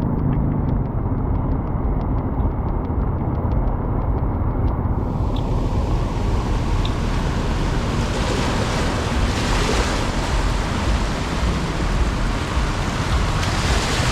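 Steady rushing of fast-flowing floodwater with wind buffeting the microphone, a heavy low rumble underneath that grows fuller after about five seconds.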